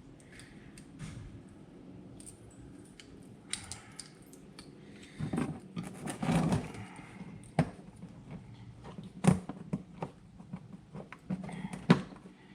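Hydro-boost brake booster being taken apart by hand: scattered metal clicks and clinks of tools and parts, with a louder stretch of handling about six seconds in and a few sharp knocks after it.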